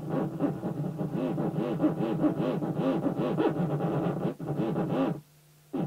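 Open Theremin V3 played through a 2-watt tube amplifier: a low pitch with fast, wide vibrato, wavering up and down about five times a second. It cuts off about five seconds in, and a brief blip of tone sounds near the end.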